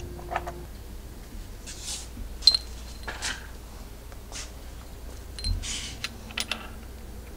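Light metallic clicks and clinks of engine parts being handled in an open cam chest, the sharpest about two and a half seconds in with a brief ring, mixed with a few short scuffing sounds.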